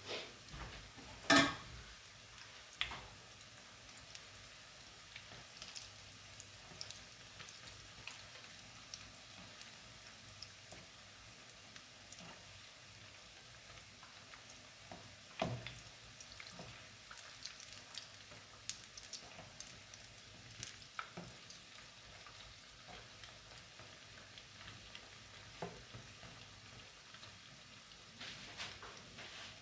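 Sardine fish balls deep-frying in hot oil: a steady sizzle full of small crackling pops, with a few sharper knocks, the loudest about a second in.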